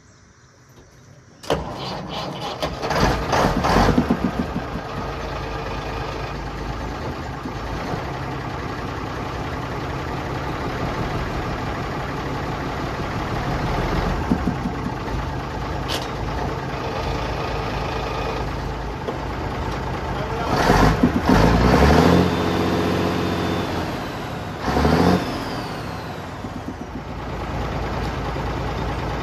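The Mack Thermodyne turbo diesel engine of a 1965 Mack B61 dump truck starts about a second and a half in, revs briefly and settles into an idle. It is revved up again about two-thirds of the way through and once more shortly after.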